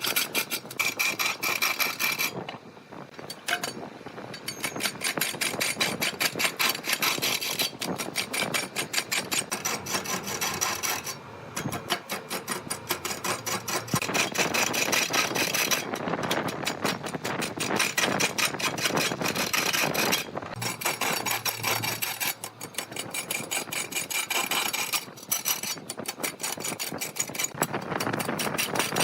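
A turning tool scraping into a spinning block of wood on a large wood lathe, a fast clatter of clicks, stopping briefly several times as the tool comes off the wood.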